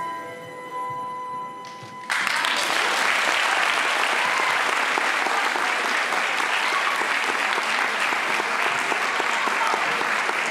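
The last held notes of the dance music fade out, then an audience starts applauding suddenly about two seconds in and keeps on steadily.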